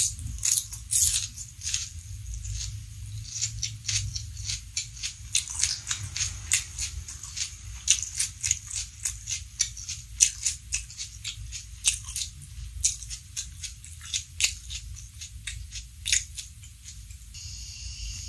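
Close-miked mouth chewing crunchy raw vegetables: a steady run of crisp crunches and wet mouth clicks, several a second.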